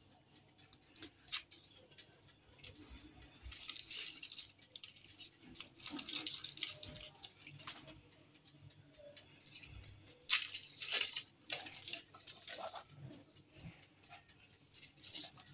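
Foil wrappers of processed cheese portions crinkling and tearing as they are peeled open by hand, in short bursts of rustling with a few small clicks.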